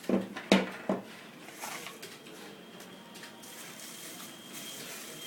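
Handling of the camera and its parts on a hard surface: three quick clunks of hard objects knocking or being set down within the first second, then faint clicks and rustling.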